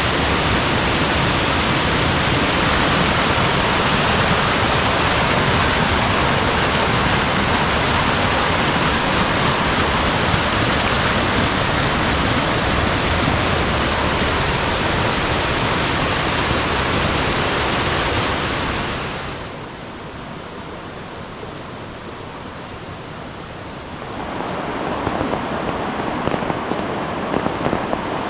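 Rushing water of a mountain valley stream, a steady loud rush that drops to a quieter rush for several seconds past the middle, then swells again.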